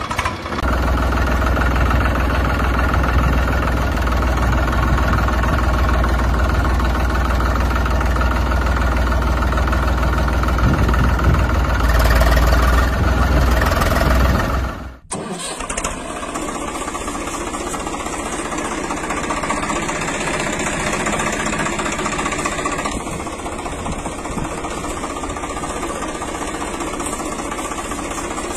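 Tractor engine running steadily with a deep rumble, getting a little louder shortly before it cuts off suddenly about halfway through; a second, thinner engine sound then runs steadily.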